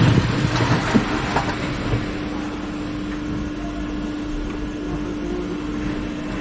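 Steady mechanical hum and noise with a constant tone, and a few sharp knocks in the first second and a half.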